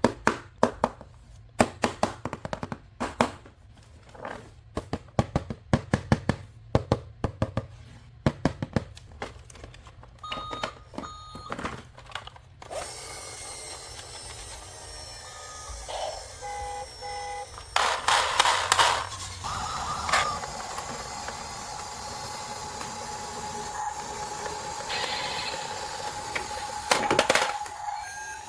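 Quick plastic clicks and knocks of a toy being handled, followed by a battery-powered toy vehicle's electronic beeps and a long steady tone.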